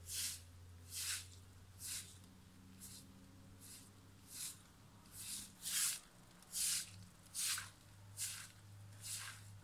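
Straw hand broom sweeping wet concrete in regular swishing strokes, a little more than one a second.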